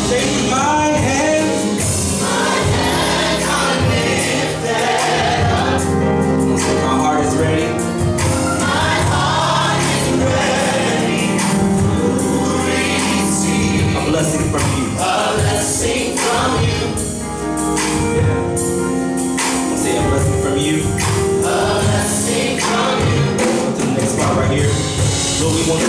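Live gospel worship music: a mixed vocal group of men and women singing together in harmony through microphones, with instrumental backing and a steady beat.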